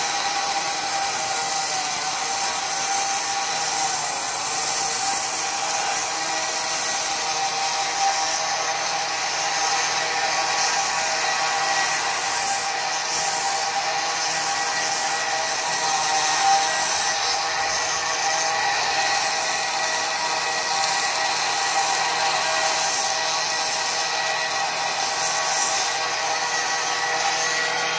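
Belt grinder running with a steady motor whine while a wooden knife handle is held against the sanding belt, giving a continuous gritty hiss of abrasive on wood. The hiss swells and eases several times.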